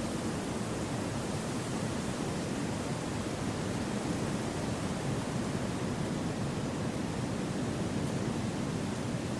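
Wind blowing steadily through forest trees, an even, unbroken rush of noise with no gusts or other sounds standing out.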